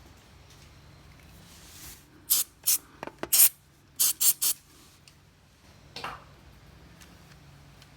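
Aerosol spray can fired in a series of short sprays: about four in quick succession, a brief pause, three more, then a fainter one a little later.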